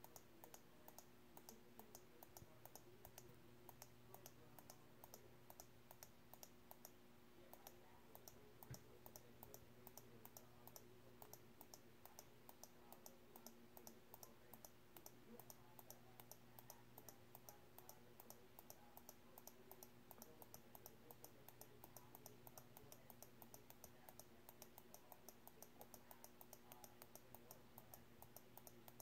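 Faint computer mouse clicks, quick and evenly spaced at about three or four a second, stepping through on-screen building instructions brick by brick, over a steady low electrical hum.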